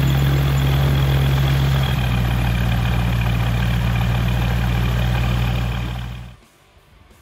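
Cavalon gyroplane's engine idling on the ground: a steady low drone that shifts slightly in pitch about two seconds in and cuts off suddenly near the end.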